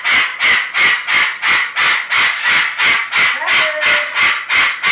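A cockatoo yelling: an unbroken run of loud, harsh screeches at about three a second, the attention-demanding screaming typical of cockatoos.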